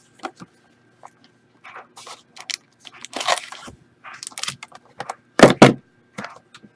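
Handling noise: scattered clicks, rustles and scrapes of objects being moved about on a table, with two loud sharp knocks about five and a half seconds in.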